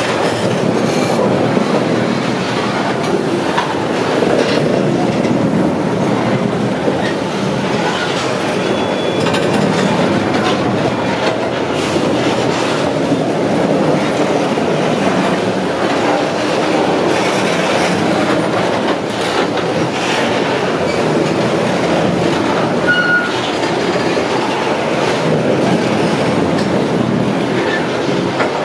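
Freight train of covered hopper wagons rolling past close by: a steady loud rumble and clatter of steel wheels on rail. Brief wheel squeals sound a couple of times.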